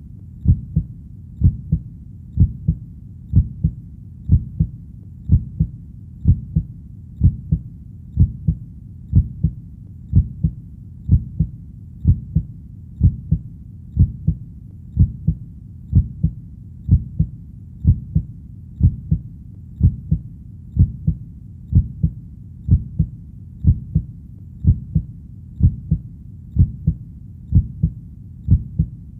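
Heartbeat sound: a steady, slow double beat, lub-dub, about once a second, deep and thudding with nothing else over it.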